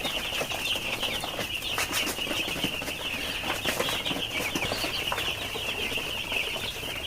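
A large flock of five-day-old broiler chicks peeping continuously, a dense chorus of many overlapping high-pitched cheeps.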